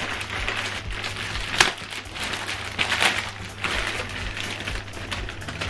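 Box packaging being handled while items are taken out, with rustling and a few short knocks, over quiet background music.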